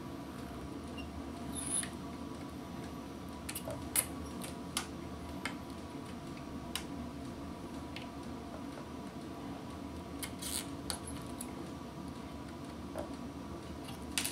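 A 100-watt pistol-grip soldering gun humming steadily while switched on to desolder a circuit board, with scattered small clicks and taps of the tip and component leads against the board.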